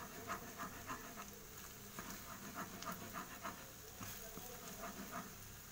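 Slotted spatula stirring and scraping scrambled eggs with onion and tomato around a frying pan in quick, uneven strokes, about three or four a second, over a faint steady sizzle.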